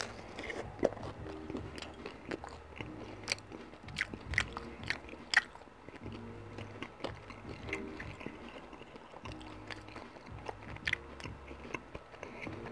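A man chewing a mouthful of pepperoni pizza close to the microphone, with irregular wet mouth clicks and smacks.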